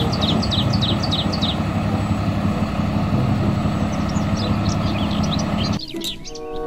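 Flatbed tow truck's diesel engine running steadily, with birds chirping in quick repeated calls over it. About six seconds in the engine sound cuts off suddenly and light music begins.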